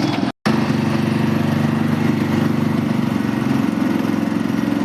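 Sugarcane juice crushing machine running steadily with a low mechanical hum. The sound cuts out completely for a split second just after the start.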